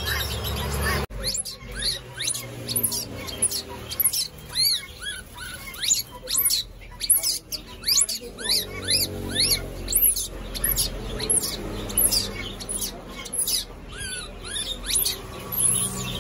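Baby macaque squeaking over and over in short, high-pitched rising-and-falling cries, several a second. In the first second, before these start, there is a low hum with faint bird chirps.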